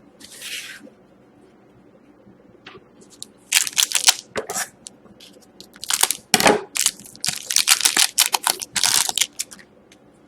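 Hockey trading card packs and cards being handled: several short bursts of crinkling and rustling as wrappers and cards are pulled and sorted.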